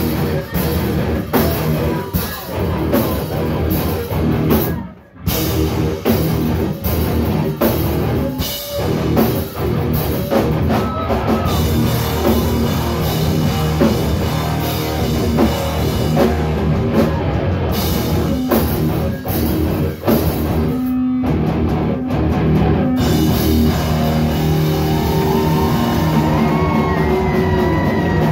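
A heavy band plays loud and live, with distorted electric guitars and a drum kit. It plays in stop-start hits, with a full stop about five seconds in, and from about twelve seconds it plays without a break.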